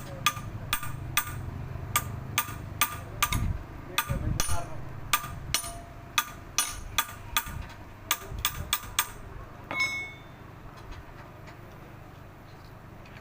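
Repeated hammer blows on metal, about two to three a second, working a gear out of a truck gearbox, followed by a single ringing metallic clank about ten seconds in.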